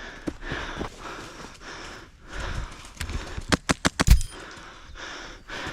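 Heavy breathing and footsteps of a player moving, then a quick burst of about six airsoft shots a little past halfway.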